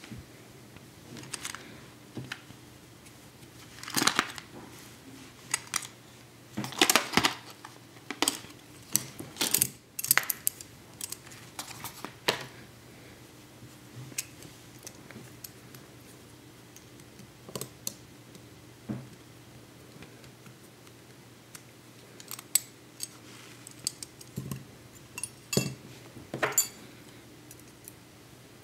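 Handling sounds of an Element Case Vapor aluminium bumper being taken apart: irregular small metallic clicks and clinks of the frame pieces and a small tool, in clusters, busiest in the first half and again near the end. A faint steady hum runs underneath.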